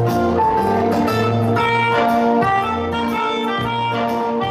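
Melodica playing a melody in held notes over a backing track with a bass line.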